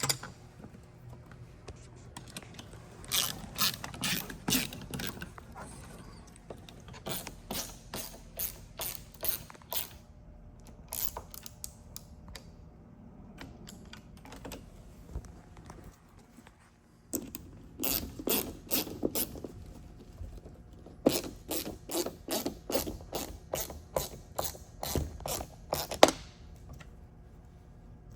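Hand ratchet clicking in quick runs, several bursts with pauses between, as the nuts on the mounting screws are tightened down.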